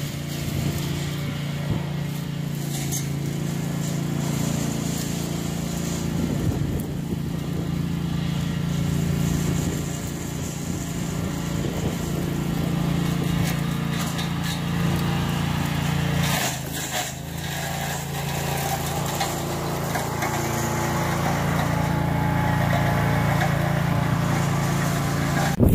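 Small engine of a homemade walk-behind brush mower running steadily while the mower works through brush, with a few brief sharp knocks and a short dip about two-thirds of the way through.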